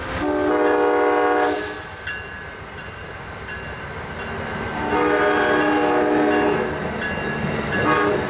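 Diesel locomotive's multi-chime air horn sounding two long blasts and then a short one, over the steady rumble of a passing train.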